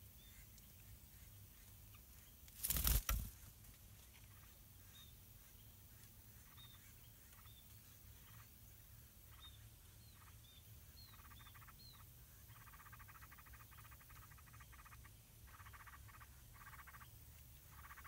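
Yellow-vented bulbul nestlings give short, high, thin chirps, a dozen or so scattered over several seconds, as they beg at the nest. About three seconds in there is a brief loud burst of noise. From midway, a rapid pulsed buzzing comes and goes in several bursts in the background.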